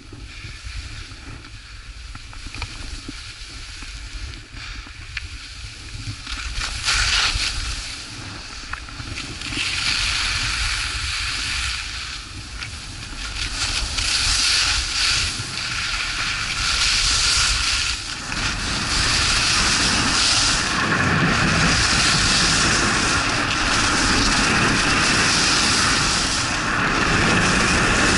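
Skis scraping and carving on firm packed snow, with wind rushing over the microphone. Quiet at first, it grows louder as the skier picks up speed and is loudest and steadiest in the last third.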